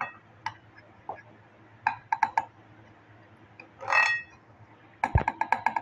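Spoon or utensil clinking and tapping against a bowl while a batter is mixed, in short irregular clusters, with a longer ringing scrape about four seconds in and a fast run of taps with one dull knock near the end.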